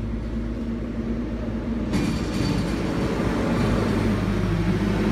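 Roadside traffic noise: a steady low engine rumble. About two seconds in, the sound changes abruptly and a louder engine drone takes over, building slightly toward the end.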